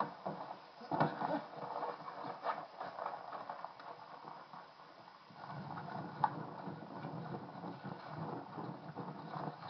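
Irregular footsteps and rustling over the ground. The steps are busy at first, and from about five seconds in they give way to a denser, steadier rustle with one sharp click.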